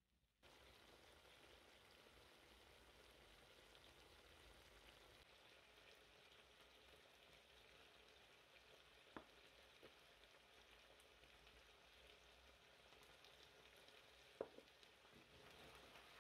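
Faint, steady sizzling of spaghetti with speck in a non-stick frying pan over a gas flame. There are two light clicks a few seconds apart in the second half.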